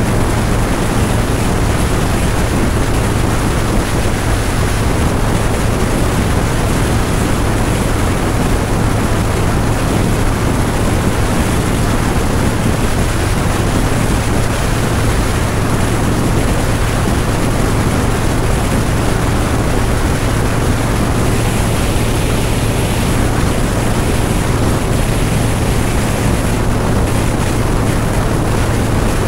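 Harley-Davidson V-twin motorcycle cruising steadily at highway speed. A constant low engine drone sits under heavy wind rush on the microphone.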